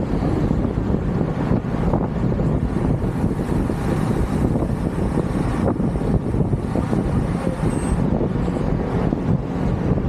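Wind rumbling on the microphone while cycling: a steady, rough rush that is heaviest in the bass, with no separate events standing out.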